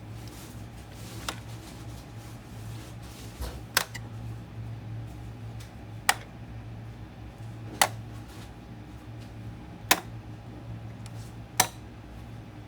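Six sharp, separate clicks, spaced about two seconds apart, over a steady low hum.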